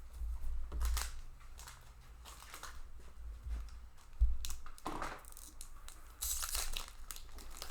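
Foil booster-pack wrapper being torn open and crinkled, with playing cards rustled and handled; a sharp knock about four seconds in.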